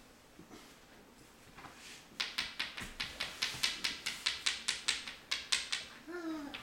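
A small hand-held toy rattle shaken quickly and evenly, about five shakes a second, for nearly four seconds. Just before the end comes a short vocal sound that falls in pitch.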